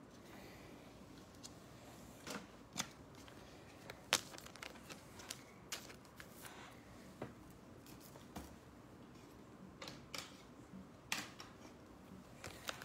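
Faint, scattered clicks and short rustles of trading-card packs and cards being handled, with a sharper click about four seconds in.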